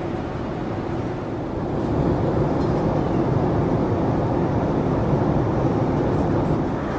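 Steady cabin roar of a Boeing 787-8 airliner in flight, engine and airflow noise heard from inside the passenger cabin, swelling slightly louder about two seconds in.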